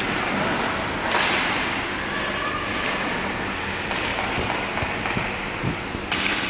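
Ice hockey skates scraping and carving on rink ice, with two sharp scraping hisses, about a second in and near the end, and a few light knocks.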